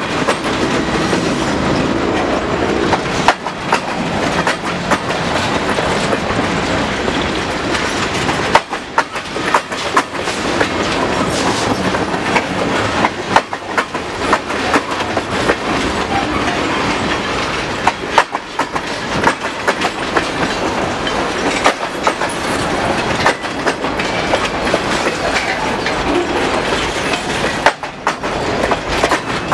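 Freight train rolling past at close range, its steel wheels clicking over the rail joints as a string of tank cars and boxcars goes by. In the first few seconds the last locomotive, a GE C40-8W diesel, is still passing.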